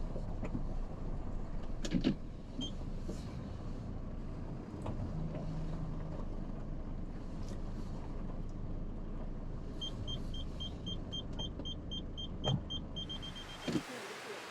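Vehicle cabin noise: a steady low engine and road rumble with a few knocks. About ten seconds in, an electronic beep begins repeating about four times a second and speeds up, the pattern of a parking sensor as the vehicle closes on an obstacle. The rumble cuts off just before the end.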